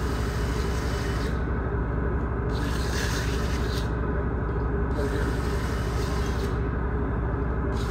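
Handheld electric buffer running with a steady hum while polishing aluminum. A higher rubbing hiss from the pad on the metal swells and drops away about every two and a half seconds.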